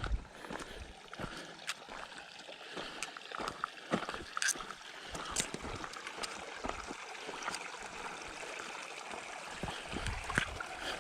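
A hiker's footsteps crunching on a dirt trail, irregular sharp steps, over a steady rushing hiss like a flowing stream.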